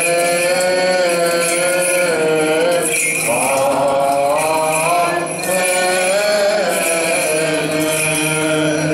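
Byzantine chant: a slow, melismatic melody of long held notes that waver and shift in pitch, sung over a steady low drone (ison). There is a light jingle of censer bells.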